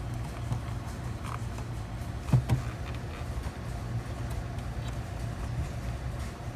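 A steady low motor hum, with a few light clicks and a single thump about two and a half seconds in.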